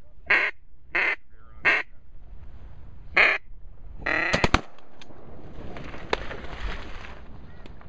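Duck quacks blown on a hunter's duck call: four loud single quacks spread over the first three seconds or so, then a quick run of notes about four seconds in.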